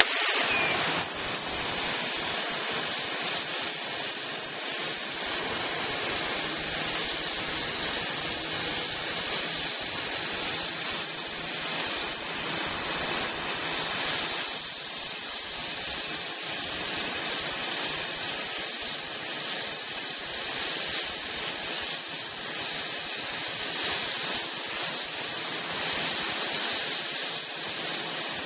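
Steady hiss of a CNC flame-cutting torch, its gas jet running without a break, after a sudden jump in level at the start.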